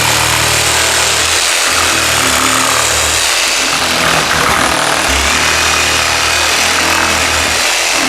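Oscillating multi-tool running steadily with a sanding pad worked over a curved surface. It makes a loud, even buzz and hiss, and its low hum dips briefly every couple of seconds.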